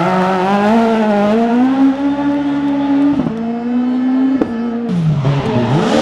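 Suzuki Swift rally car's engine pulling hard, its note climbing and then held high, broken by two quick gear changes. Near the end the note falls away and a second rally car's engine, a Renault Clio, rises in.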